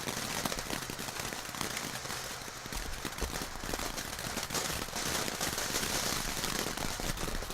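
Consumer firework burning with a dense, rapid crackle over a steady hiss.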